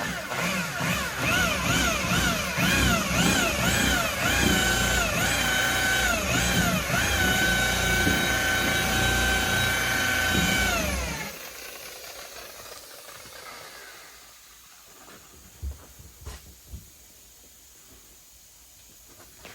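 High-speed rotary buffer running on car paint during paint correction: a loud electric whine that wavers in pitch for the first several seconds, then holds steady before winding down and stopping about eleven seconds in. After that only faint handling noises, with a few light knocks.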